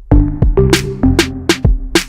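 Background music: an electronic hip-hop style beat with sharp drum-machine hits about twice a second over a bass line and held synth notes.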